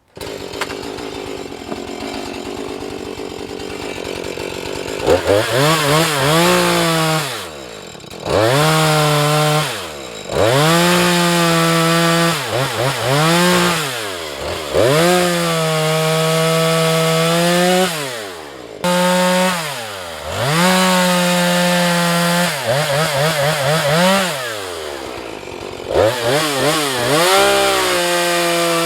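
Husqvarna 435 two-stroke chainsaw idling for about five seconds, then revved up to full throttle again and again, held high for two to three seconds at a time with quick drops back to idle between, as it cuts through branches.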